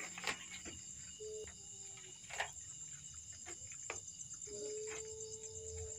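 Crickets chirping steadily, with a few sharp clicks and knocks over them. About three-quarters of the way in, a faint steady tone sets in and holds.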